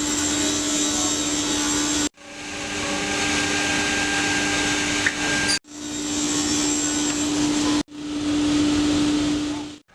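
Woodworking machinery running steadily, a loud rushing noise over a steady hum, in four short clips cut one after another with abrupt breaks.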